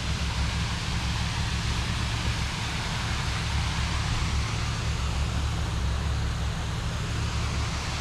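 Waterfall's rushing water, a steady even roar with a deep rumble underneath.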